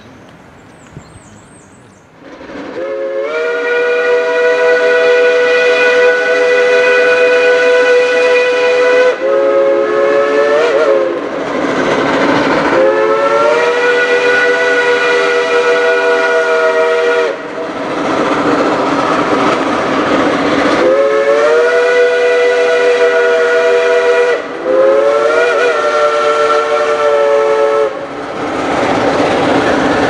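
Shay geared steam locomotive's whistle blowing a series of long blasts, several notes at once, each sliding up in pitch as it opens and sagging as it closes. Between the blasts the locomotive's exhaust works hard on the climb.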